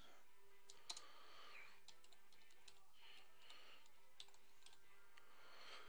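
Faint, irregular clicks of typing on a computer keyboard over low room hiss.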